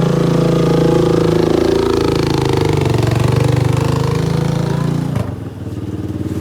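Small ATV engine turning over and running rough during a push-start attempt on a quad that won't start, a rapid pulsing engine sound that drops away about five seconds in.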